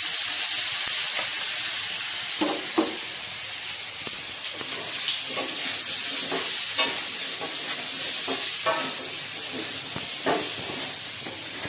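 Cubed potato, yam and raw papaya with ground spices sizzling in mustard oil in a kadai, the spices being fried before water goes in. A wooden spatula scrapes and turns them against the pan in short, irregular strokes over a steady sizzle.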